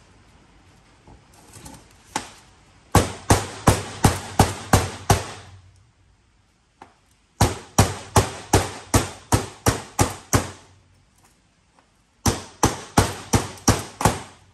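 A hammer striking metal in three runs of quick, evenly spaced blows, about three a second, each with a short ring. It is beating on a brass fitting stuck through a piece of aluminium to knock it apart.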